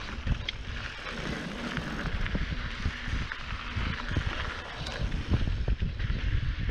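Mountain bike rolling fast over dry, loose dirt singletrack. The knobby tyres hiss and crunch on the soil, while the bike and camera mount rattle and knock over the bumps, with wind buffeting the microphone.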